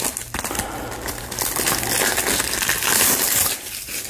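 Plastic wrapping on a CD crinkling and crumpling as it is pulled off by hand, with a continuous rustle that is loudest in the middle.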